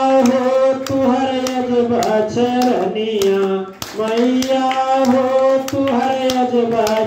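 A man's voice singing a Hindi devotional bhajan into a microphone, holding long notes that slide down in pitch partway through and then climb back up. A steady beat of sharp claps runs under the singing.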